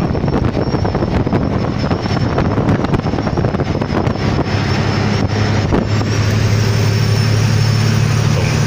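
Inside a moving semi-truck's cab: steady engine drone under road and wind noise, the engine hum growing stronger and steadier about six seconds in.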